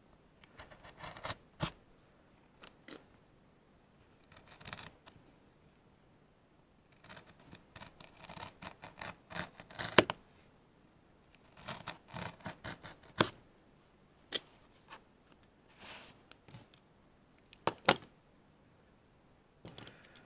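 A scalpel blade scoring and cutting through a thin fruit-crate wooden board: short, irregular scratching strokes with a few sharp clicks, the loudest about halfway through.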